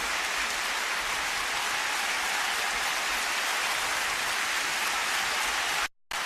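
Concert audience applauding between songs, a steady wash of clapping. It drops out completely for a fraction of a second near the end.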